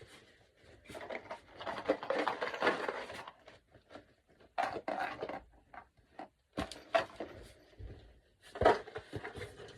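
Handling noises from objects being moved and packaging being rustled, coming in irregular bursts with a few sharp knocks and clicks. The longest stretch of rustling comes about a second in, and the loudest knock comes near the end.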